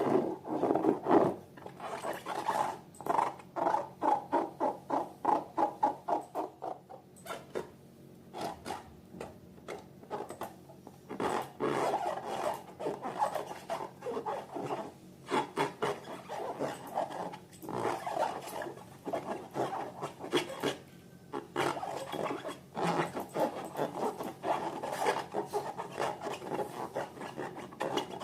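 Slime being stirred and squished, a rapid run of sticky clicks and squelches several times a second, easing off for a few seconds about a third of the way in.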